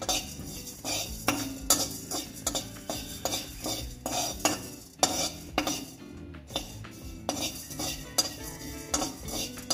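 Stainless steel spoon stirring and scraping whole spices as they dry-roast in a metal kadhai, with repeated metal-on-metal scrapes and clinks about two to three a second and the dry seeds rattling.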